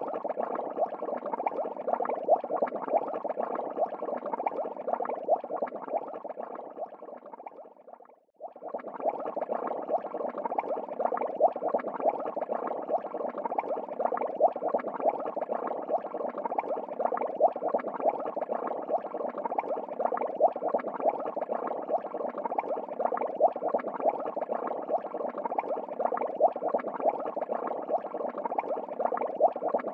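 Steady crackly bubbling of aquarium water. It fades almost to nothing about eight seconds in, then comes straight back.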